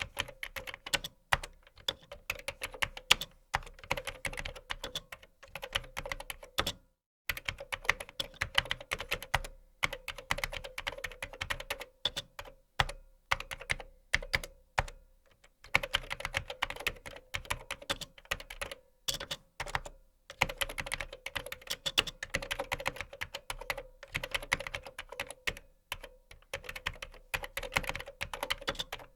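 Typing on a computer keyboard: rapid runs of key clicks in bursts, with short pauses between runs, over a faint steady hum.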